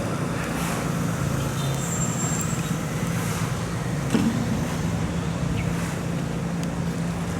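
Large river barge's diesel engine running steadily, a low, even drone.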